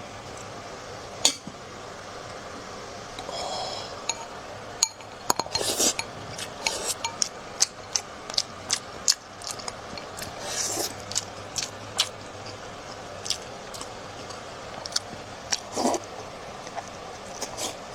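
Eating utensils clicking and clinking irregularly against a bowl as food is stirred and mixed with sauce, with a few short wet rustling sounds.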